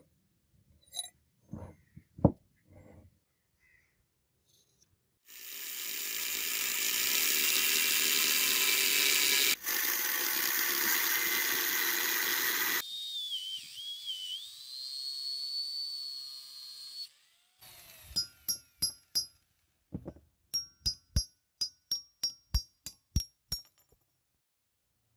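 Angle grinder with a thin disc cutting into a steel hammer head along a marked line, loud and steady for about seven seconds, then running lighter with a wavering high whine until it stops. This is followed by a quick series of sharp, ringing metallic clinks, about two a second. A few light knocks come in the first seconds.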